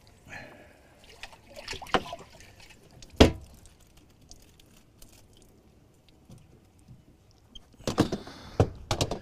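Water sloshing and dripping as live shiners are dipped out of a boat's bait well, with sharp knocks against the boat's fittings: a couple about two seconds in, the loudest about three seconds in, and a cluster near the end.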